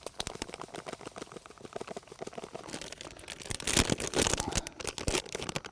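Dry fishing groundbait being poured from its bag and worked by hand: a dense run of rustles and crackles that grows louder a little past halfway.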